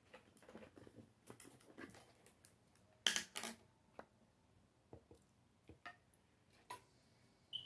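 Quiet clicks and knocks of a plastic mini-blender cup being unscrewed and handled, with a louder double knock about three seconds in and a short ringing clink near the end.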